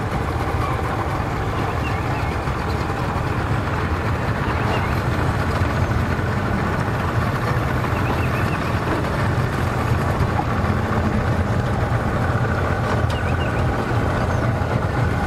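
Engine idling with a steady low rumble.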